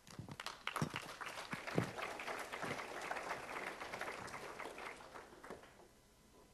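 Audience applauding, a patter of many claps that dies away about five seconds in.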